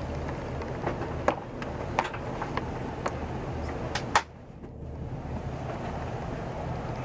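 Steady aircraft cabin hum, with a few sharp clicks and knocks as a folding business-class tray table is unfolded and handled. The loudest knock comes about four seconds in, and the hum drops for a moment just after it.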